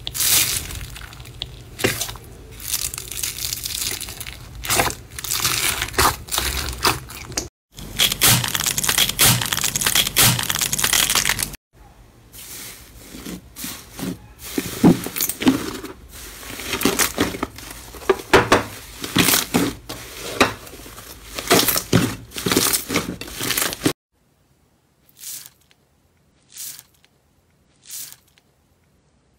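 Hands pressing and kneading slime, with dense crackling, crunching and popping from the foam beads mixed into it and from air pockets squeezed out of the slime. The sound stops abruptly three times as separate clips cut in; the last few seconds hold only a few separate crackles.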